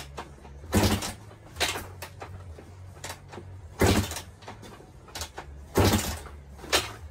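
A 1990 Suzuki RM250 two-stroke single being kick-started: about five hard kicks of the kick-start lever a second or two apart, each a short thump and whoosh as the engine turns over. The engine does not catch.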